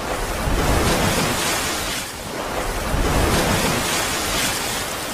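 Intro sound effect: a rushing noise like surf or wind, with no tune or voice, swelling about a second in, easing briefly, then swelling again.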